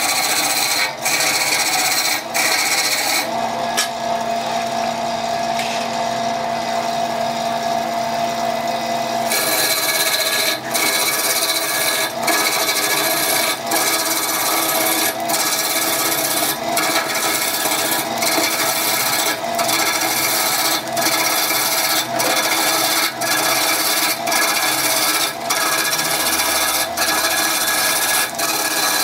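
Wood being worked by hand with rhythmic rasping strokes, about one stroke every second or so. A steady mechanical hum runs alongside the strokes for about six seconds, starting a few seconds in.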